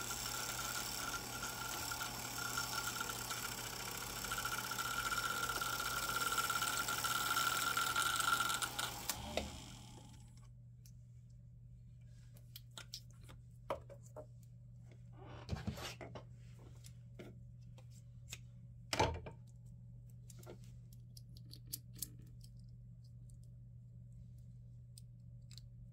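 Vintage Singer sewing machine winding a bobbin: a steady whir with a whining tone that stops suddenly about nine seconds in. Scattered small clicks and knocks follow as the bobbin is taken off and handled, with one louder knock about two-thirds of the way through.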